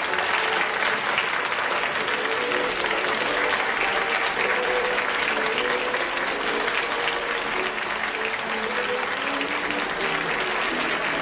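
Studio audience applauding steadily, with the game show's closing theme music playing underneath.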